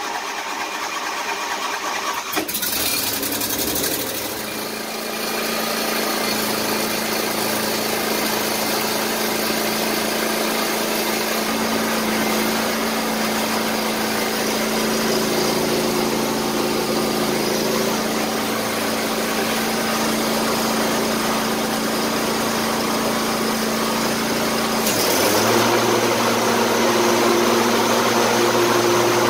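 John Deere LA165 lawn tractor engine running just after a choked cold start, its first start of the year. It settles into a steady run within the first few seconds, and about 25 seconds in its note shifts deeper and a little louder.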